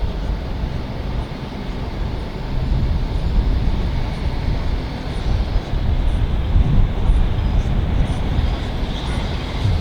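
A train running through a station, a steady low rumble with some wind noise on the microphone.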